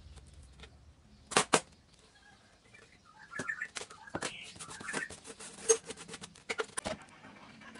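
Hands laying a strip of brown tape along a styrofoam fuselage and pressing it down: two sharp clicks about a second and a half in, then a run of small clicks and crackles for several seconds.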